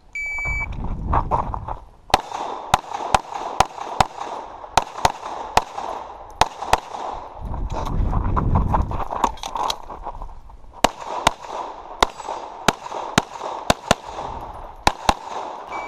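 A shot timer's start beep, then about two dozen pistol shots fired in quick pairs and strings during a practical shooting stage, with a low rumble in the pauses between strings.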